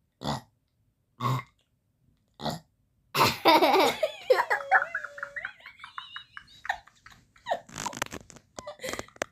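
Three short burps about a second apart, then a longer, louder burp about three seconds in, followed by laughter and giggling.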